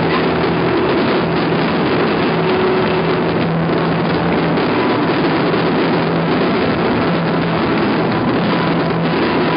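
Massed fireworks fired from a skyscraper's facade going off without pause, heard as a loud, steady, dense roar of bangs and crackling.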